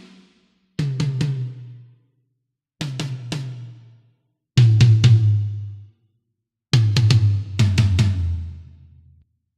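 Sampled metal drum kit from EZdrummer 3's Modern Metal EZX library playing four short separate fills. Each is a quick run of a few hard hits with ringing low tones that decay, followed by a pause, with cymbal wash over the later ones.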